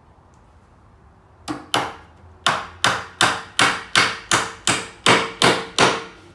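Hammer driving nails through the top board of a wooden cabinet made of old decking wood. It starts with two quick taps, then about ten steady blows at roughly three a second, each with a short ring.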